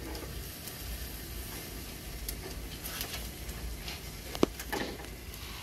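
Whole red snapper sizzling on the grill in a hinged wire grill basket as the basket is turned over, with a steady low rumble underneath. One sharp clank about four and a half seconds in, the loudest sound, as the wire basket knocks against the grate.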